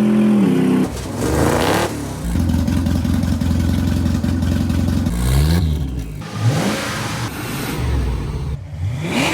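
Yamaha 650 twin engine of a motorcycle-engined lawn mower running and being revved in several short cut-together clips, its pitch rising and falling repeatedly.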